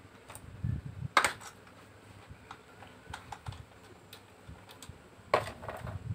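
Small clicks and knocks of screws and a new radiator fan motor being handled and seated against a plastic radiator fan shroud, with two louder knocks, one about a second in and one near the end.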